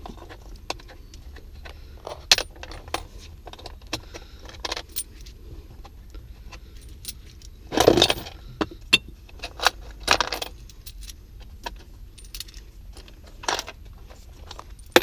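Loose quarters clinking and jingling as they are gathered by hand, among scattered sharp clicks and rattles, with two louder rattling bursts about 8 and 10 seconds in.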